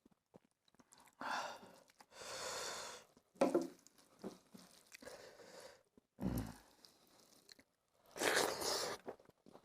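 Close-miked eating of fish curry with rice: bouts of chewing and crunching, with a brief low thump a little past the middle.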